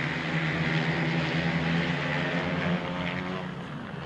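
Engines of several 500cc grasstrack racing sidecar outfits running hard together as they race down a straight, a steady mixed drone that drops a little near the end.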